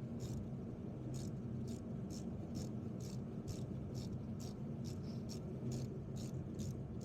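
Socket ratchet clicking in short strokes, about two clicks a second, over a steady low hum.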